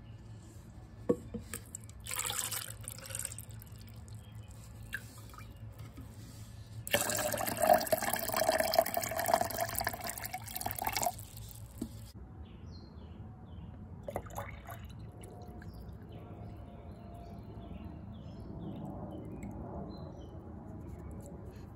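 Water pouring from a plastic jug into a plastic cup, a splashing pour that lasts about four seconds midway. Near the end comes a quieter, thin stream of liquid running into a glass jar.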